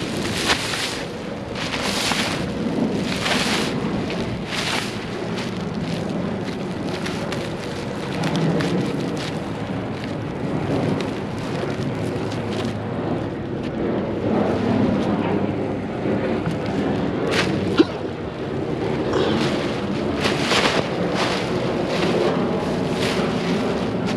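Clear plastic wrap on bundled gypsum board crinkling and rustling in repeated crackly bursts as gloved hands pull and handle it, over steady wind rumble on the microphone. One sharp click about three-quarters of the way through.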